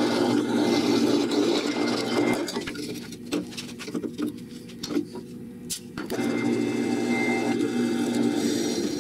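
Drill press boring into a steel rectangular tube, a steady drilling noise. About two and a half seconds in the drilling stops and a few light clicks and taps are heard as the metal chips are cleared, and about six seconds in the drilling starts again.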